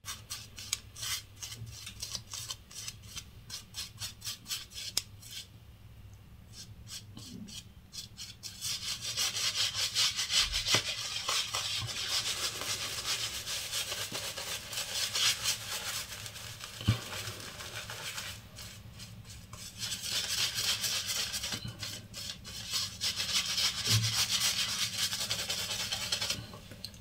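Shaving brush lathering shaving soap onto a bearded face: rapid back-and-forth rubbing strokes, softer for the first several seconds and louder from about a third of the way in, with a short lull just past the middle.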